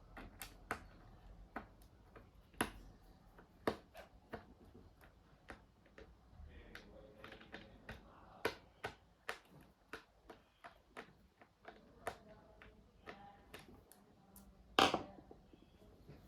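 Scattered sharp clicks and taps from handling a laptop, a few dozen at uneven intervals, with one louder knock near the end.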